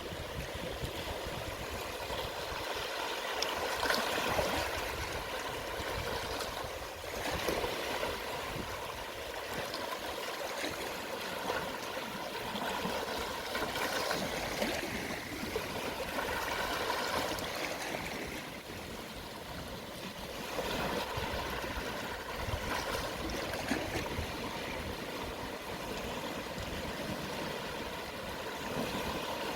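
Gentle sea waves at low tide washing and lapping over a shallow shore, swelling softly every few seconds.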